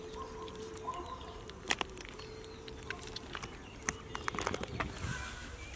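Sharp wet slaps and clicks from freshly caught small fish and eels flapping in a cloth sack, a quick flurry of them about four seconds in, over faint outdoor ambience with bird calls.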